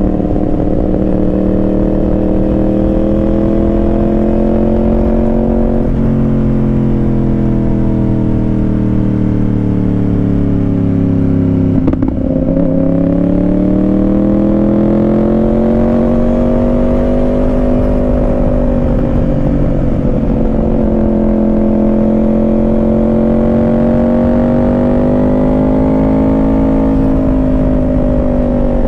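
Yamaha R1 sport bike engine through a Yoshimura exhaust, riding at steady part throttle; its pitch rises and falls gently with the road, breaks briefly about twelve seconds in, then climbs again.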